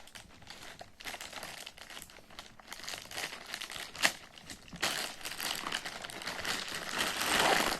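Packaging crinkling and rustling as it is handled and opened, with a sharp click about four seconds in; the rustling grows louder in the second half.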